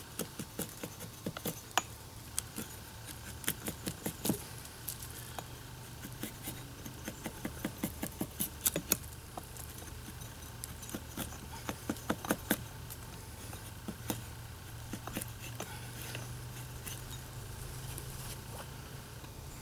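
A blade shaving a wooden axe-handle blank: short scraping cuts in quick, irregular runs, thinning out in the last third.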